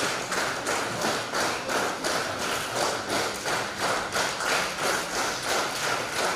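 A congregation clapping together in a steady beat, about three claps a second.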